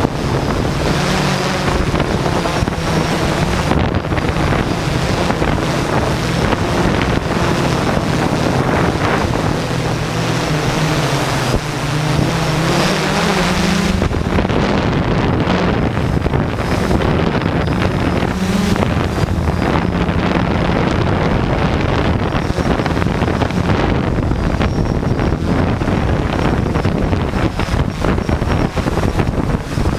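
Hexacopter's six SunnySky X2212 980KV brushless motors spinning Gemfan 10×4.5 propellers, a steady loud buzz whose pitch steps up and down as the flight controller changes throttle. Wind rushes over the microphone of the GoPro on the craft.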